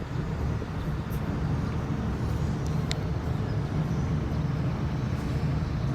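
Car in motion: a steady low rumble of engine and tyres on the road, with a couple of faint ticks.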